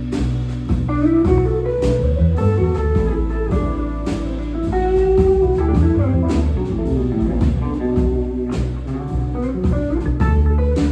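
Band music: an electric or acoustic guitar playing melodic lines over bass and drums, in a bluesy, jazz-tinged style.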